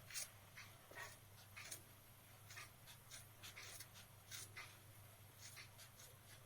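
Scissors snipping woolen yarn to trim it level: a run of faint, short snips, irregular, about two a second.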